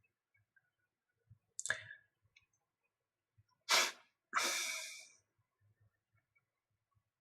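Three short breathy bursts from a person: a brief sharp one, then two loud ones close together, the last lasting about a second and fading out.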